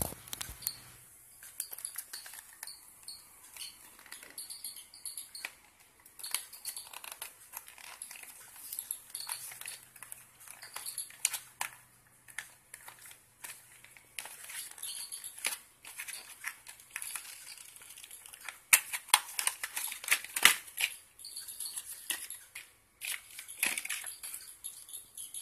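Plastic and cardboard packaging of a bicycle tail light crinkling and rustling as it is handled and opened by hand, with irregular clicks and snaps throughout. A few louder, sharp snaps come about three quarters of the way through.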